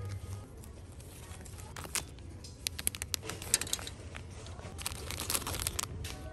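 Plastic packaging crinkling and crackling as insole packets are handled on a store display, in two bursts of crisp clicks over a low steady hum.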